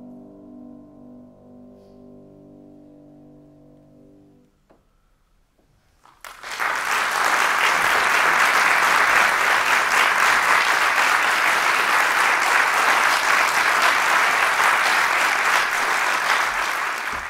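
Last chord of a grand piano dying away over about four seconds, then a short silence, then audience applause that breaks out about six seconds in, holds steady and cuts off suddenly at the end.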